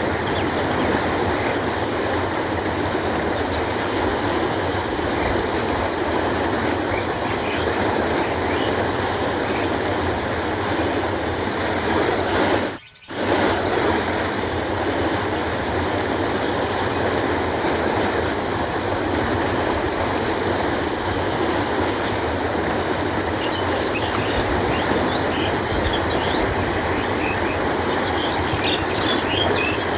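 Canal water flowing, a steady, even rush that breaks off for a moment about halfway through. Birds chirp in the last few seconds.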